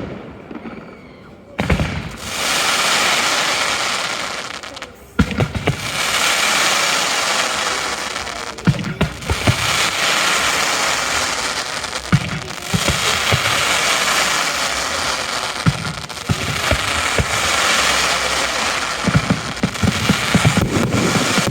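Fireworks display: sharp bursts, each followed by several seconds of dense crackling hiss. Scattered bangs and pops come thicker near the end.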